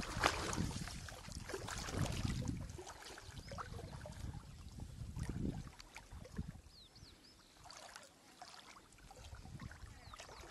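Water sloshing and swishing around legs as people wade through thigh-deep water, heaviest in the first half, then quieter.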